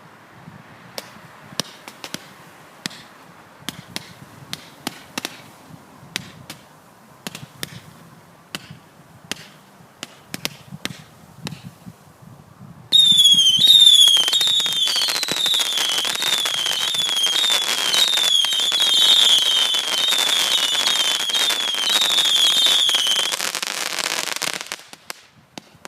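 Firework cake with spiralling whistles firing: about thirteen seconds of scattered faint pops and clicks, then a sudden loud, dense barrage of rapid shots under a whistle that warbles down and up in pitch again and again, stopping a second or two before the end.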